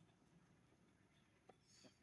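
Near silence: faint outdoor background with a couple of faint ticks about a second and a half in.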